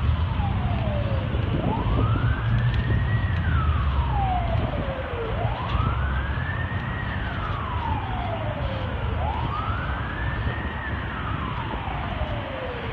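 A wailing siren. Its pitch rises over about a second and a half, falls over about two seconds, and repeats roughly every four seconds, over a steady low rumble.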